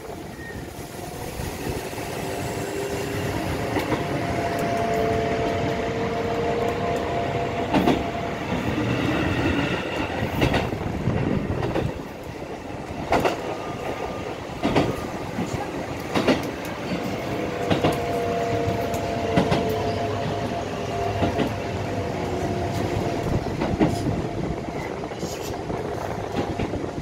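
Running noise inside a moving Keikyu 1500-series train car, with its ceiling Mitsubishi Linedelia fan running. A motor whine rises in pitch over the first several seconds and falls again past the middle. Sharp wheel clicks over rail joints come every couple of seconds.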